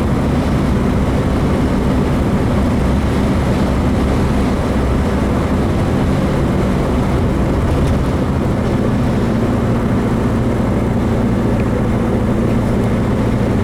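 Air-cooled VW 1776 cc flat-four engine, built with a stock cam and stock carburettor, running steadily under way, heard from inside the car.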